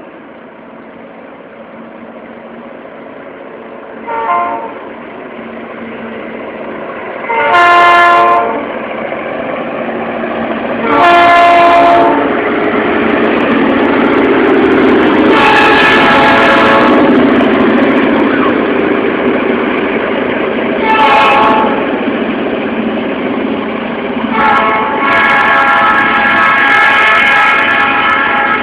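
Norfolk Southern diesel freight locomotives' multi-chime air horn sounds for the grade crossing in a series of blasts: a faint short one, two long ones, another long one, a short one, and a final long one, the longest, near the end. Under the blasts, the locomotives' engine rumble grows steadily louder as the train approaches and reaches the microphone.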